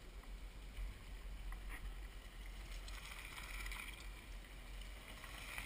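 Faint, steady outdoor background noise: a low rumble under a soft hiss, with a few faint ticks and no voices.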